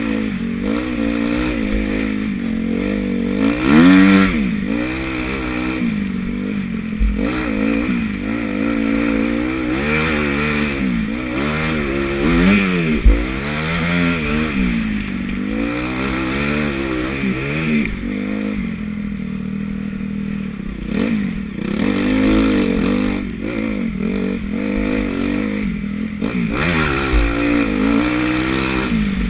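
Honda CRF250 motocross bike engine heard from the rider's helmet, revving up and dropping back again and again as the throttle is worked. A couple of sharp knocks stand out, about four seconds in and again about thirteen seconds in.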